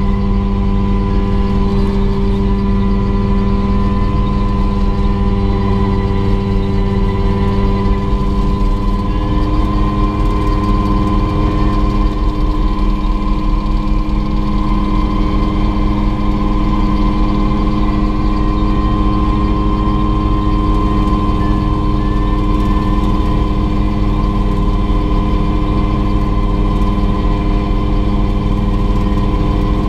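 Turbine engine of a Mosquito helicopter running steadily, a constant multi-tone whine over a low rumble, with a small change in its tone about nine seconds in.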